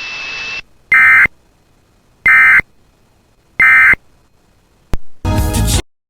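Emergency Alert System end-of-message signal: three short, identical bursts of digital data tones, about 1.3 seconds apart, after a steady hiss cuts off. A click and a brief noisy burst follow near the end.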